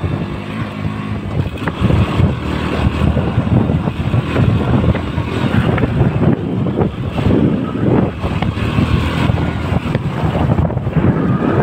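KTM Duke 200's single-cylinder engine running while riding, largely buried under heavy wind buffeting on the microphone that swells and gusts irregularly.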